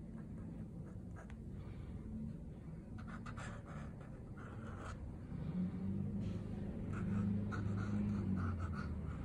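Steel dip-pen nib scratching across paper in short, quick strokes as ink lines are drawn. There are clusters of strokes about three seconds in and again from about six seconds, and a low steady hum comes in about halfway through.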